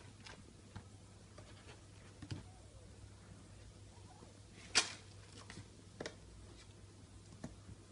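Bengal kittens' paws scratching and stepping in granular cat litter in a plastic tray: faint scattered scratches and small clicks, the loudest about five seconds in, over a low steady hum.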